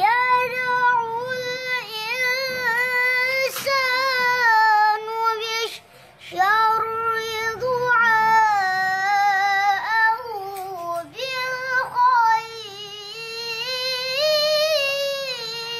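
A young boy reciting the Qur'an in melodic tilawah style, his high voice drawing out long ornamented notes in three long phrases with short breaths between.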